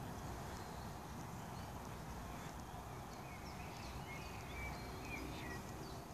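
Faint outdoor ambience: a steady low rumble with scattered short, high bird chirps.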